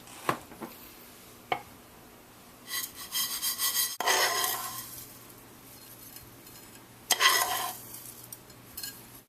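Kitchen utensil scraping against cookware in a few short spells, with a couple of light clicks, as freshly cooked pasta is served up.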